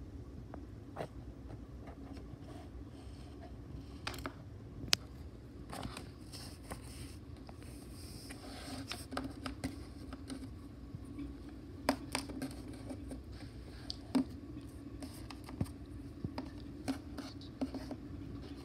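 Handling noise: scattered light clicks, taps and scrapes as small plastic toy figures on a tabletop and the recording phone are moved about, over a steady low hum.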